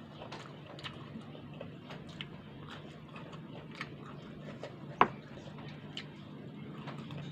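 Close-up mouth sounds of someone eating fried tempe and salted fish by hand: scattered small clicks and smacks of chewing, with one sharper, louder click about five seconds in, over a faint steady hum.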